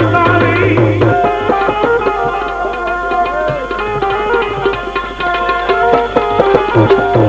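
Instrumental passage of a devotional bhajan: tabla drum strokes in a steady rhythm under a melody instrument holding sustained notes. A low held note drops out about a second in.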